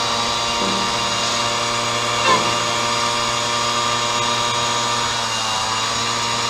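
Mobylette moped's small two-stroke engine running at a steady speed under way, its pitch dipping briefly near the end.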